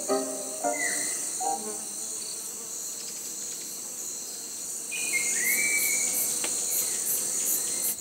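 Rainforest insect chorus, a steady high buzzing with faster high pulsing in the last few seconds, with a flycatcher and an antbird calling: a short whistle about a second in, and a couple of quick stepped notes followed by a longer whistled note about five seconds in. Piano music fades out in the first two seconds.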